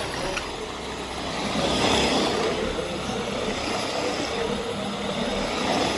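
Vax Air Steerable Max upright vacuum cleaner running steadily, its motor a loud even rushing drone that swells slightly as it is worked.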